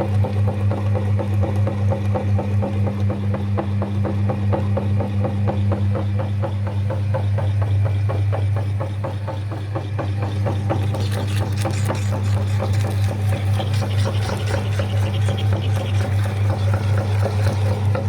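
Electric meat grinder motor running with a steady hum that pulses regularly in level. From about eleven seconds in, a hissy, grating noise is added on top.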